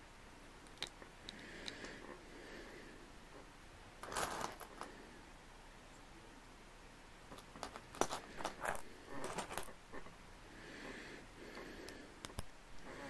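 Plastic LEGO bricks clicking and clattering as they are handled and pressed together, in short bursts, the loudest about four seconds in and again around eight to ten seconds.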